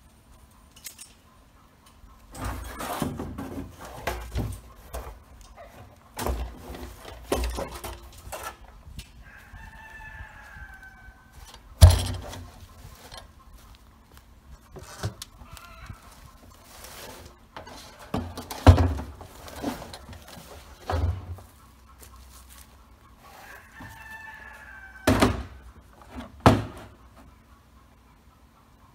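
Hollow knocks and thumps of a blue plastic barrel being dragged, bumped and set upright, the loudest about twelve seconds in and twice near the end. A rooster crows twice in the background.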